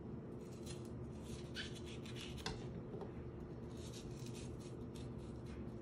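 Chef's knife slicing the ribs and seeds out of green bell pepper halves on a wooden cutting board: soft scraping cuts in two short runs, over a steady low hum.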